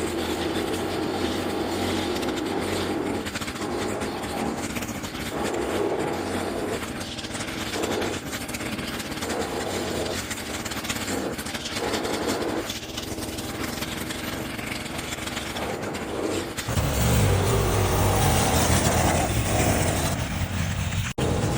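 Electric snow shovel running steadily as its auger churns and throws snow. About three-quarters of the way through it becomes louder and deeper.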